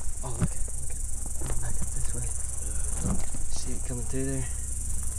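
Steady high-pitched chorus of insects buzzing, with footsteps and brush rustling on dry ground as someone walks along a trail.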